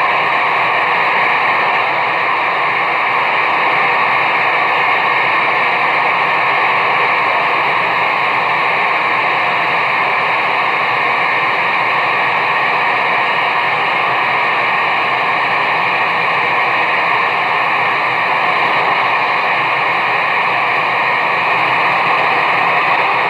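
Loud, steady static hiss from a CB radio's speaker: a received signal full of noise, with no voice on it.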